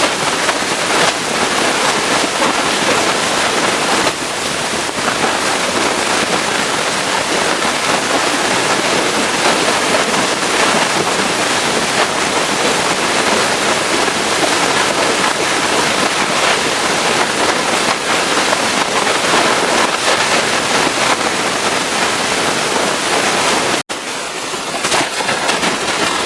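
Pressure washer jet spraying water onto a truck: a loud, steady hiss of spray, broken for an instant near the end.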